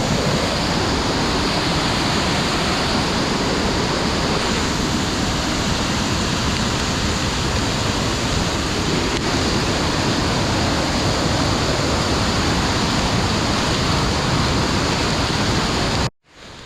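Loud, steady rush of a waterfall's falling water. It cuts off abruptly near the end.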